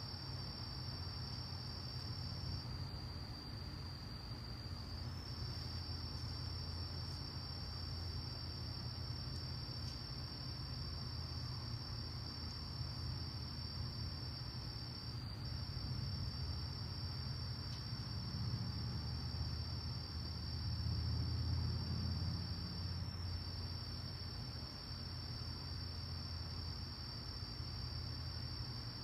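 Crickets chirping in a steady, unbroken high-pitched trill. Under it runs a low rumble that swells and fades about two-thirds of the way in.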